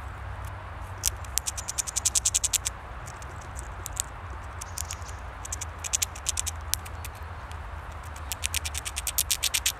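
Eurasian red squirrel gnawing through a nut's shell: bursts of fast, sharp clicks, about nine or ten a second, about a second in, again around four and six seconds, and from about eight seconds on. A steady low rumble underneath.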